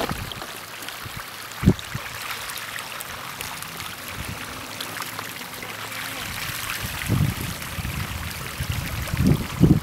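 Sea water washing at the shore, a steady hiss, with a low thump a couple of seconds in and some low rumbling near the end.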